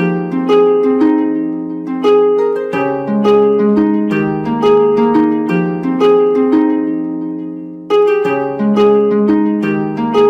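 Background music of plucked-string arpeggios, each note ringing and fading as the next begins, with a brief lull about eight seconds in before the pattern resumes.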